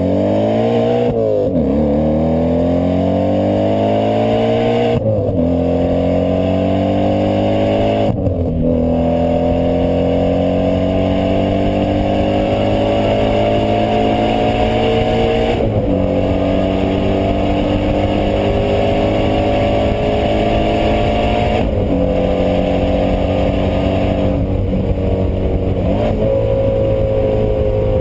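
Audi S4 engine pulling hard up through the gears, its pitch climbing steadily and dropping sharply at each of about six shifts, then falling away near the end as it eases off.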